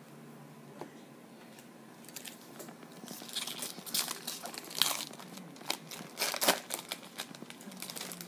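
Baseball card pack wrapper being torn open and crinkled by hand, in irregular crackling bursts that start about two seconds in.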